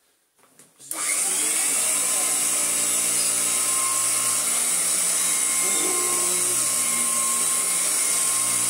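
Hoover Royal 606 commercial upright vacuum cleaner switched on about a second in, its motor then running steadily with a low hum and a strong high hiss.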